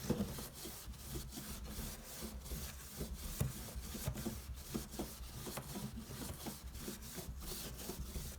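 Paper napkin being rubbed and pressed down onto a cardboard brick coated with PVA glue, in short repeated scrubbing strokes about two to three a second.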